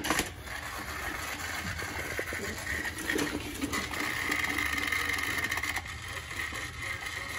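Small electric motor of a remote-control Thomas toy train whirring steadily as the train runs along its track.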